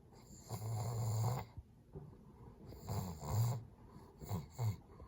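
A dog growling low and rough in three bouts, the first longest, the last short and broken.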